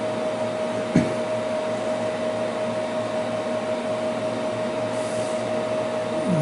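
Steady whir of electronic equipment cooling fans, with a constant mid-pitched hum tone running through it. A single sharp click about a second in.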